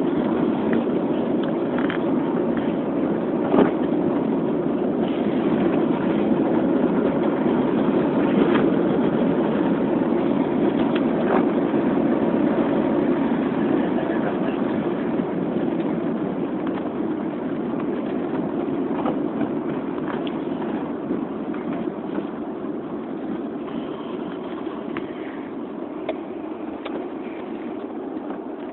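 Steady road and engine noise heard from inside a moving car driving on snowy roads, with a few faint clicks, growing gradually quieter in the latter part.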